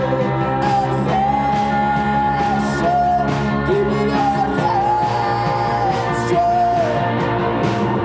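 Live rock band playing: a woman's voice singing long held notes over electric guitar, bass guitar and drums with regular cymbal hits.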